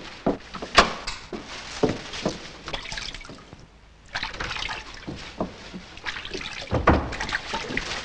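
Water splashing and trickling in a washbasin as a woman rinses her hair, starting about halfway through after a short lull. Before it come a few sharp taps.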